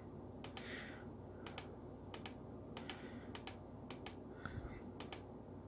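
Light clicks at a computer, faint and irregularly spaced, several coming in quick pairs.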